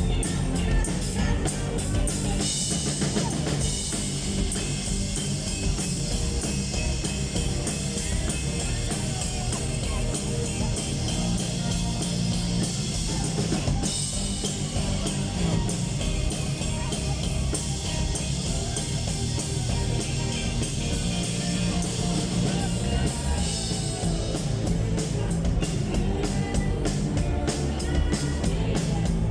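Rock band playing, with a steady drum beat on kit and cymbals, electric guitar and bass; the cymbals grow brighter a couple of seconds in.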